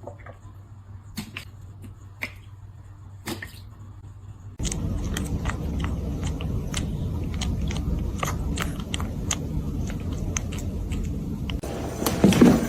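A pet chewing, with irregular crunchy clicks: sparse and quiet at first, then denser over a louder background noise from about four and a half seconds in.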